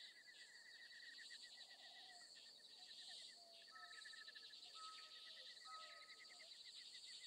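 Faint outdoor ambience of chirping animals in fast, evenly repeating pulses, with a few short whistled notes around the middle.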